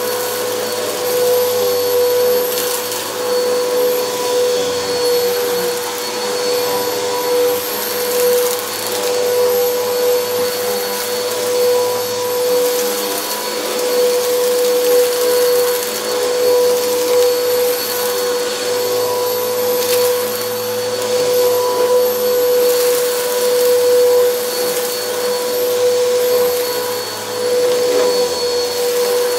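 Upright vacuum cleaner running steadily on carpet, a constant motor whine over the rush of suction. The level swells and dips gently as it is pushed back and forth.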